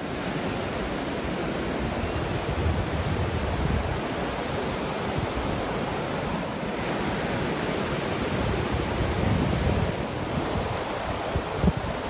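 Sea surf breaking and washing up a sandy beach in a steady rush, with wind gusting on the microphone.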